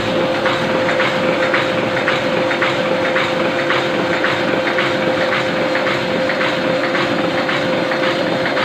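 Ryobi 520 single-colour offset printing press running, a steady hum under a regular clicking of about two to three clicks a second as it cycles through sheets.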